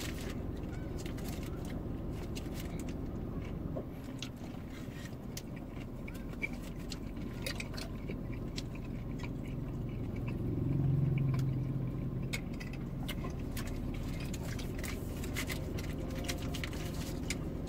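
Chewing and biting into a paper-wrapped shawarma, with the wrapper crinkling and small mouth clicks, over a steady low hum in a car cabin. A deeper rumble swells and fades about ten seconds in.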